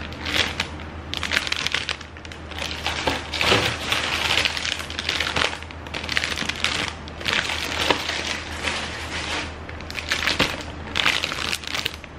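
Clear plastic bags holding plastic model-kit runners crinkling and crackling in irregular bursts as they are handled and lifted out of a box.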